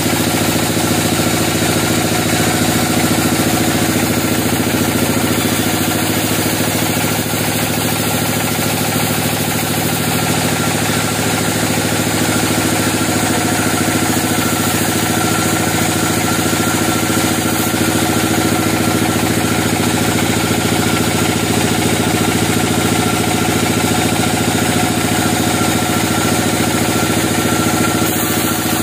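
Log band sawmill running steadily with its blade cutting lengthwise through a thick log: a loud, even machine sound with several steady tones and no pauses.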